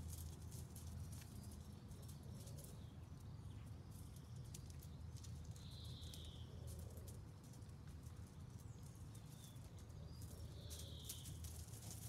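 Quiet outdoor garden ambience: a steady low rumble with faint scattered crackles and clicks, and a bird's short chirp twice, about six and eleven seconds in.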